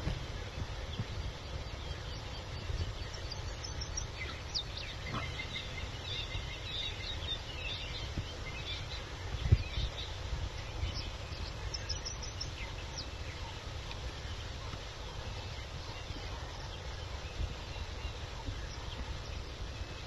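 Wild birds calling with scattered short chirps and trills over a steady low rumble, with one low thump about nine and a half seconds in.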